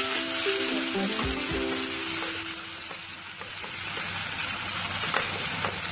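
Ground onion, chilli, ginger and garlic masala paste sizzling as it is poured into hot coconut oil in a pan, with a few soft knocks as a wooden spatula scrapes the paste from the mixer jar. Faint background music plays in the first couple of seconds.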